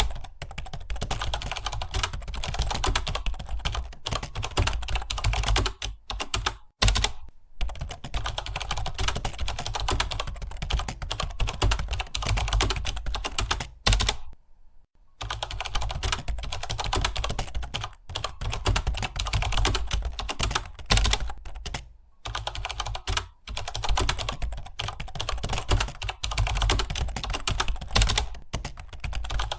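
Fast, continuous typing on a computer keyboard, a dense run of key clicks broken by a few short pauses and one of about a second halfway through.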